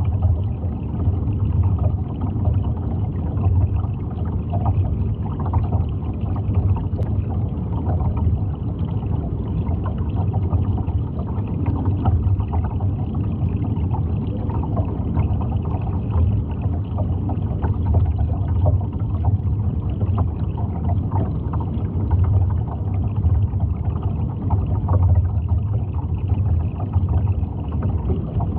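Steady low underwater noise picked up by a submerged camera, strongest in the low end, with many faint short crackles scattered through it.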